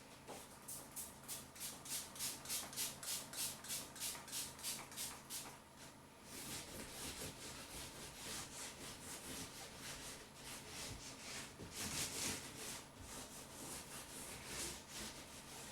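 Soap being rubbed onto a motorbike tyre in quick even strokes, about four a second, for the first six seconds. Then looser, uneven scrubbing follows, with a stronger stroke near the twelve-second mark.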